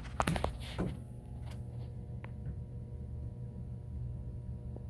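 Steady low indoor hum with a few short knocks and clicks in the first second and a couple of faint ticks later.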